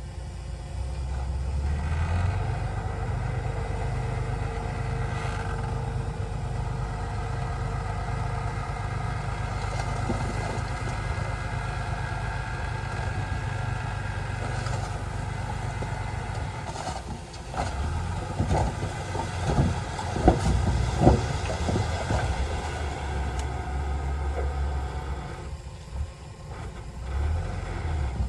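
Komatsu D20A crawler bulldozer's diesel engine running steadily while pushing soil. A cluster of sharp metallic clanks and knocks comes a little past the middle.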